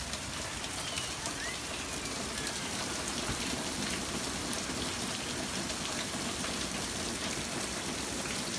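Steady rain falling on pavement and a swimming pool: an even hiss of drops, unchanging throughout.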